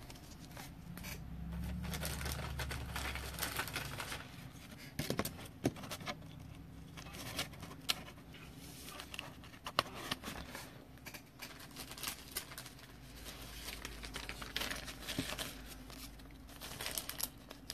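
Crinkling of a foil trading-card pack wrapper and handling of cardboard cards, with scattered sharp clicks.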